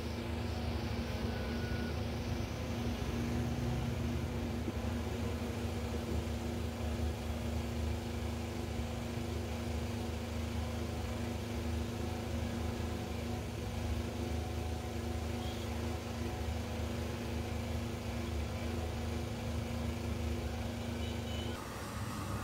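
A steady mechanical drone, like a motor or engine running, with an even low hum. Near the end it gives way to a different steady whir.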